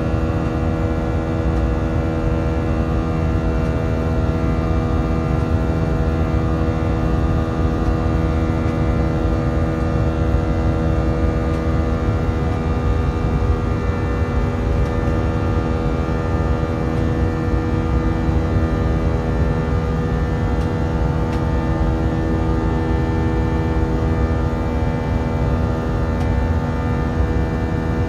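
IAE V2500 turbofan of an Airbus A319, heard inside the cabin during the climb. It runs steadily as a chord of several droning tones held over a deep engine rumble: the "engine symphony" typical of this engine.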